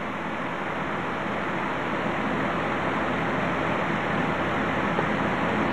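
A steady rushing hiss with no tones or clicks in it, slowly growing a little louder, then cutting off suddenly at the end.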